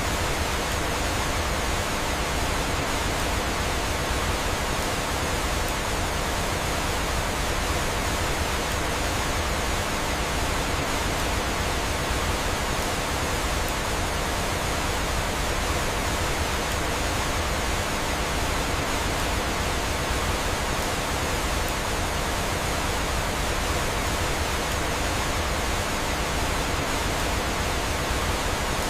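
Waterfall and flowing water rushing steadily: an even, unchanging hiss.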